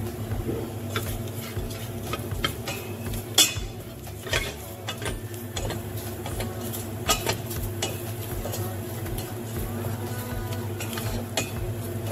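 A spatula scraping and knocking against a stainless-steel pot as flour is stirred into butter-sautéed vegetables, cooking it just until the raw flour smell changes. The strokes are irregular, over a steady low hum.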